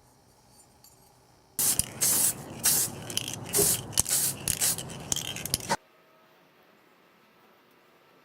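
Aerosol spray-paint can spraying in a quick series of short hissing bursts, starting suddenly about a second and a half in and cutting off sharply about four seconds later.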